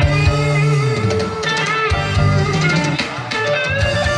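Loud amplified music with guitar and drums, playing without a break.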